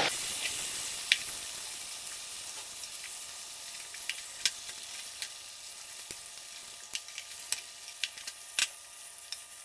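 Chicken pieces frying in sunflower oil in a pot on high flame, sizzling as a wooden spatula turns them over. The sizzle fades gradually, with scattered sharp pops and clicks.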